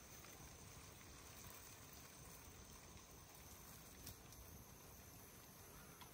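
Near silence: faint steady background hiss with one soft tick about four seconds in.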